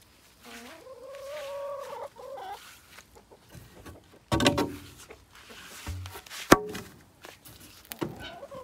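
Chickens clucking, with one long drawn-out call starting about half a second in and held for about a second and a half. Two sharp knocks come about four and six and a half seconds in, the second the loudest.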